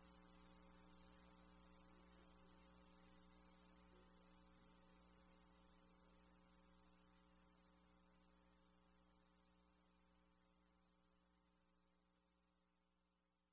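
Near silence: only a faint, steady electrical mains hum.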